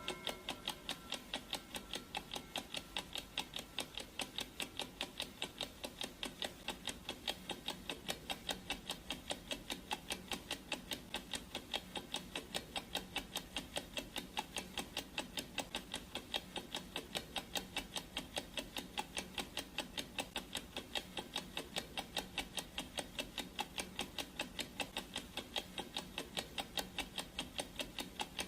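Clock ticking sound effect: a steady, even ticking, several ticks a second.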